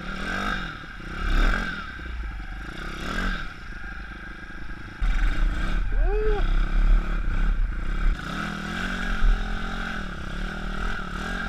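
YX 160cc single-cylinder four-stroke pit bike engine revving up and down moderately as the bike is ridden over a dirt trail. The engine is freshly fitted and being run in, so it is kept off high revs. Wind buffets the helmet-mounted microphone, loudest in the middle.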